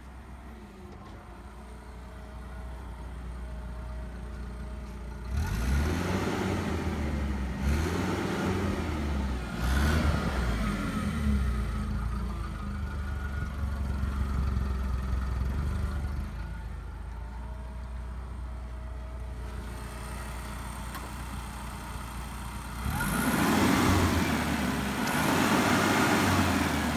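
Petrol/LPG engine of a Komatsu FG20T-16 forklift running steadily, revved up in short surges several times and again near the end.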